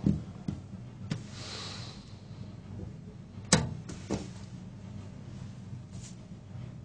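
Lever switches on a mock electric-shock generator clicking as they are pressed: a handful of sharp clicks, the loudest about three and a half seconds in, with a soft hiss after the first second.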